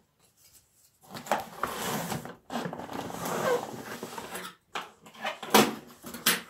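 Cardboard shipping box being handled on a wooden table: scraping and rustling as it is slid and turned over, with a few sharp knocks and the rip of its adhesive strip being pulled off near the end. The sounds start about a second in.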